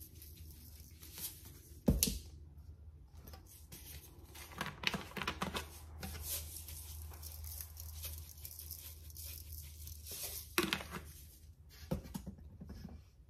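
Salt and seasoning shaken from canisters onto raw sliced beef in a pot, making rustling, pattering stretches. A container is knocked down onto the counter about two seconds in and again near the end.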